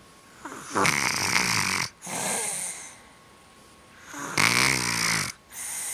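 Person snoring while congested with a cold: two loud snores about three and a half seconds apart, each a pitched, buzzing snore followed by a shorter breathy rush of air.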